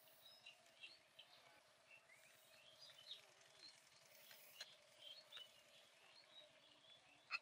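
Near silence: faint outdoor ambience with scattered short bird chirps and a faint steady hum, and a single sharp click near the end.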